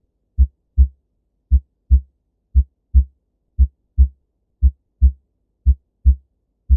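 Normal human heart sounds: six 'lub-dub' pairs at about one beat a second, the first sound (S1) from the mitral and tricuspid valves closing and the second (S2) from the aortic and pulmonary valves closing. The pause after each second sound (diastole) is longer than the gap within each pair (systole), and nothing is heard between the beats.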